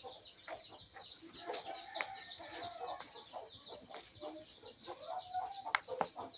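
Chickens clucking faintly in the background, with a steady run of short high chirps, several a second, and lower clucks now and then.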